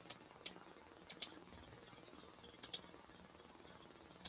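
Computer mouse clicking: about six or seven sharp clicks, mostly in quick pairs.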